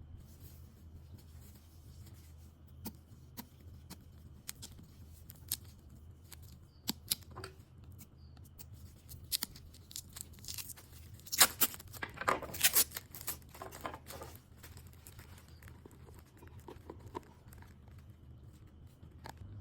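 Packaging being handled and torn open: scattered clicks and taps, then a few seconds of loud tearing and rustling around the middle.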